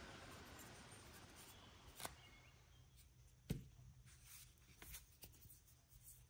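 Near silence broken by a few light clicks and knocks, the loudest a short knock with a dull thud a little past halfway, as the metal cup and flat washers and bushings are handled and set down on the workbench.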